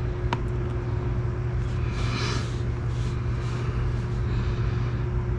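A steady low machine hum with a faint constant higher whine over it, and a brief soft hiss about two seconds in.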